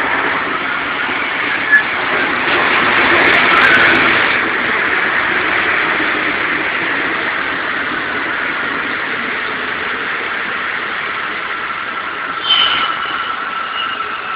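CAF-built metro train running into an underground station past the platform, a steady rumble of wheels on rails that peaks a few seconds in and slowly eases as it slows. Near the end a steady whine comes in as the train brakes.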